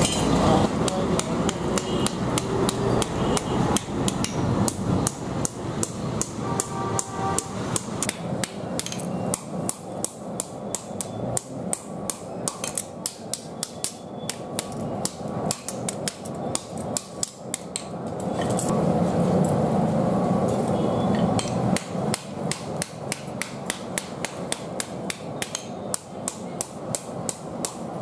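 Hand hammer striking a red-hot steel billhook blade on an anvil in quick, steady blows, about three a second, as the blade is forged by hand. A low rumbling drone swells for a few seconds about two-thirds of the way in.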